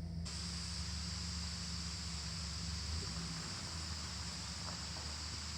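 Steady outdoor ambience: an even high-pitched hiss over a low hum, with no distinct events.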